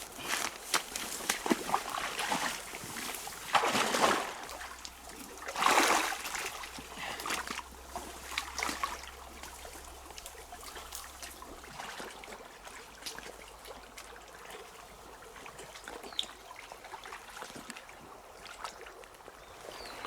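Water splashing and trickling as a baited fish trap net is lowered back into a ditch, with two louder splashes in the first six seconds, then a fainter steady trickle.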